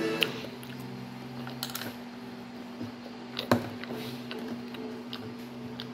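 Close-up chewing with small wet mouth clicks, and one sharp louder click about halfway through, over a steady low hum.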